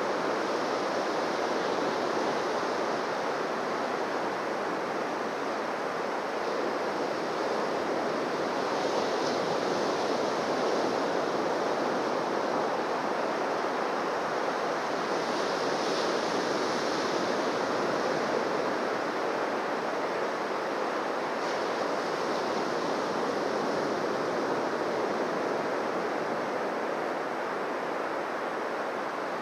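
Surf on a beach: a steady wash of waves, with a few brief louder hisses of breaking water.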